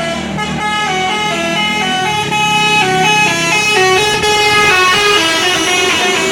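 A Basuri 'telolet' bus horn, a multi-tone musical air horn, playing a fast tune of quickly changing notes, with the bus's engine running underneath for the first couple of seconds.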